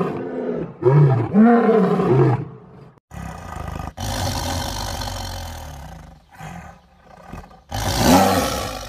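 Male lion roaring in a run of short, grunting roars. After a break of about a second, a tiger crouched over meat snarls with a long rough hiss, then gives one loud snarling roar near the end.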